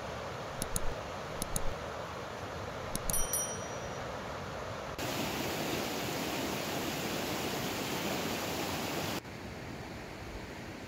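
Steady rushing of river water. For about four seconds in the middle it is louder and brighter, heard close up, then drops back to a softer rush. In the first three seconds a few light metallic clinks come in pairs.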